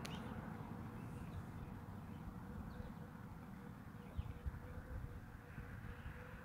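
Quiet outdoor ambience: a low, fluctuating wind rumble on the microphone with a faint steady hum, and a few faint bird chirps.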